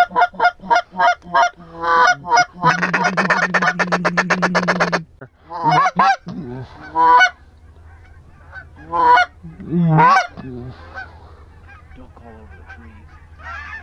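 Hunter blowing a mallard duck call: a string of evenly spaced loud quacks, then a fast rolling feed-call chatter for about two seconds, then a few single quacks with pauses between them.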